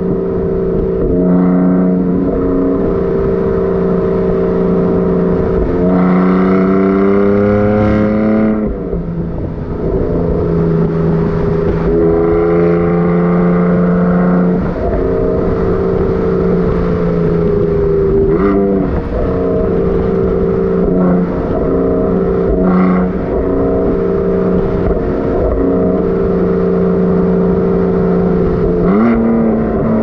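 BMW F80 M3's twin-turbo inline-six running through an M Performance titanium exhaust under way, mostly holding a steady note. A few times the pitch climbs under throttle and then drops away sharply.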